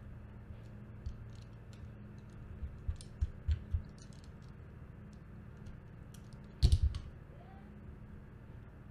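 Small clicks and handling knocks from screwdrivers, wires and push-button switches being handled while wiring. There are a few knocks around the middle and a louder brief clatter about two-thirds of the way through.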